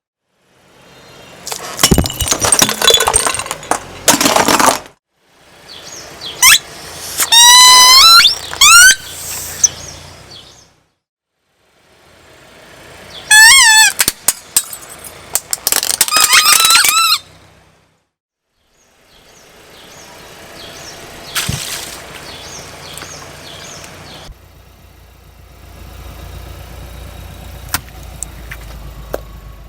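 A string of short crushing clips: a loud crunching burst as an object breaks under a car tyre, then high squeals that waver in pitch, twice, as soft objects are squeezed. Near the end a car engine runs quietly.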